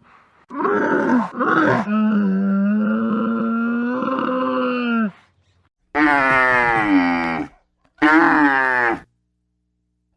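Camel calling: one long call of about five seconds, then two shorter calls with a wavering pitch.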